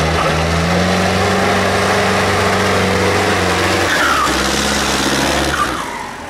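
Tractor engine running hard at high revs, its pitch shifting up and down a little; the sound drops away sharply near the end.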